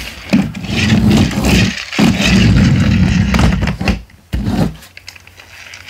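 Four-wheel-drive friction-powered toy monster truck whirring as its wheels are pushed along and its flywheel gears spin up. It comes in two pushes of about a second and a half each, then a short third one.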